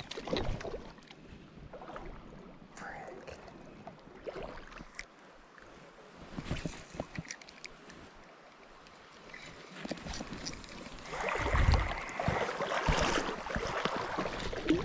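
Shallow creek water sloshing and splashing close by, with scattered small clicks; it grows louder from about eleven seconds in.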